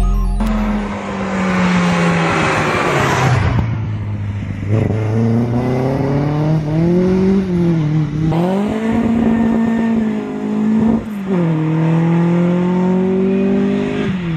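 Mk1 Ford Escort Mexico's 1690 Crossflow four-cylinder on twin 45 Weber carburettors driven hard: it passes close with a rush and a falling note, then its note rises and dips through the revs as it drives on, cutting out briefly a couple of times. At high revs it sounded to those present like it had a bad misfire.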